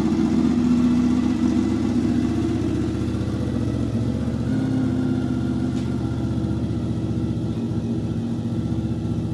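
Honda 750 V4 motorcycle engine running steadily, with no sharp revs.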